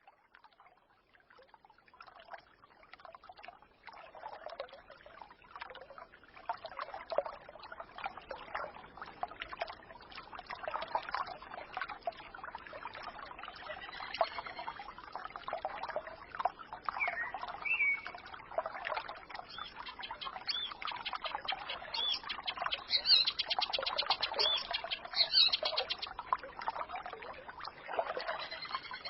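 Small forest stream trickling and babbling, fading in over the first few seconds. Birds chirp now and then over the water, most clearly around the middle and in the second half.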